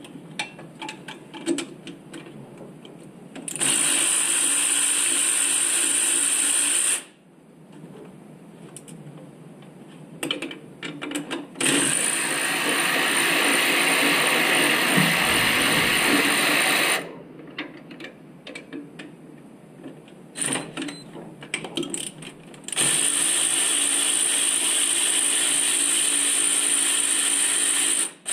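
A powered ratchet runs three times for a few seconds each, spinning bolts out with a socket on an extension. Between the runs come scattered clicks and knocks of the socket and tools.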